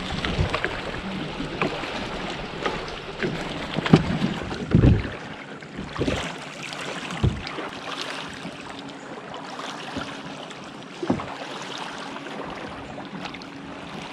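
Kayak paddling: irregular paddle strokes splashing and knocking, over water and wind noise on the microphone.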